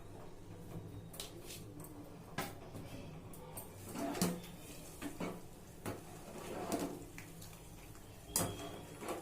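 Kitchen utensil knocking and clinking against a cooking pot while the soup is stirred: several separate sharp knocks about a second apart.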